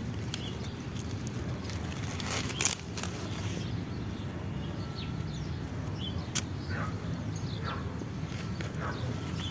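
Broccoli plant's leaves rustling as the head is grabbed, loudest for about two seconds near the start, then a few sharp clicks and snips of scissors cutting through the stem.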